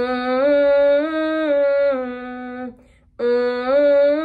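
A woman's voice humming a sustained tone up and back down the first three notes of a major scale, gliding smoothly between notes. It stops, then starts the same pattern again about three seconds in. This is a blend-voice warm-up exercise sung around the break into mixed voice.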